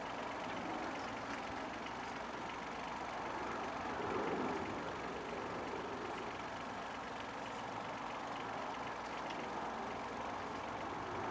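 Compact tractor engine running steadily while working a rear-mounted trenching blade.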